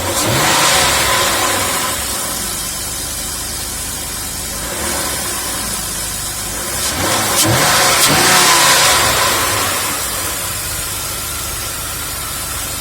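BMW M50B25 straight-six engine running hot, blipped twice, at the start and again about seven seconds in, each time rising and falling back to idle. The hydraulic lifters have pumped up and no longer tick.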